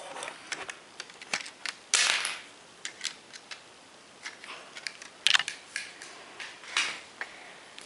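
Plastic Lego pieces clicking and knocking as a minifigure is pulled out of a Lego Technic helicopter, with a short scraping rustle about two seconds in and a sharp click about five seconds in.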